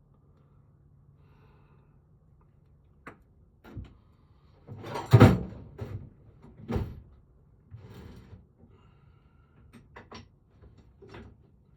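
Scattered knocks and clicks of small lock parts as a piece is pushed back onto a lever-handle lock cylinder. The loudest knock comes about five seconds in, a second one a little later, and lighter clicks near the end.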